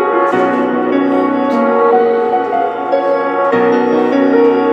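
Background music: an instrumental stretch of a track with sustained piano-like chords that change every second or two.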